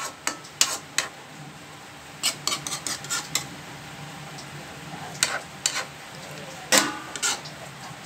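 A metal spoon clinking and scraping against a pan while stirring bamboo shoots in coconut milk: irregular clacks, a few near the start, a quick run of them about two to three seconds in, and more around five and seven seconds.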